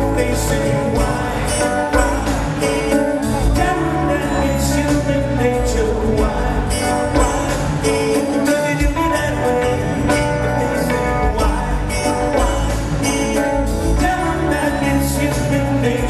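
Live pop-rock band playing, with a male lead vocal over keyboards and bass and a steady beat of light, high percussion.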